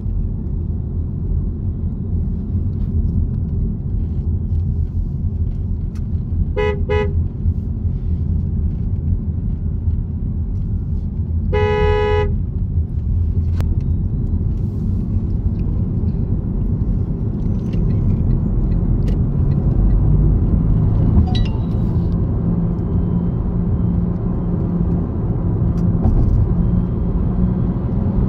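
Steady low rumble of a car being driven, road and engine noise. A car horn gives two quick toots about seven seconds in, then one longer honk about twelve seconds in.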